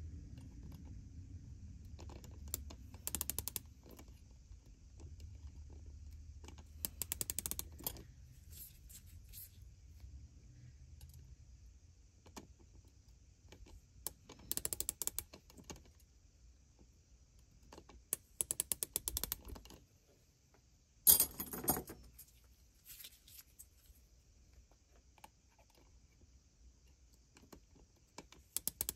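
Digital micrometer's ratchet thimble clicking in quick runs of about a second, several times over, as the spindle is closed onto a gas tube to measure its diameter; the run about two-thirds of the way through is the loudest.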